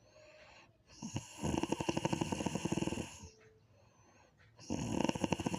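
Snoring: two drawn-out snores of about two seconds each, made of rapid pulses, with a quiet pause between them; the second begins near the end. A faint high whistle sounds in the quiet stretches.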